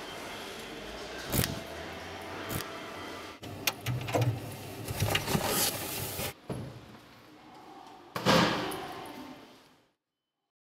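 Keys jangling and a key working the lock of a metal coin locker, a run of clicks and rattles, then one loud bang like the locker door being shut, its sound dying away over about a second and a half.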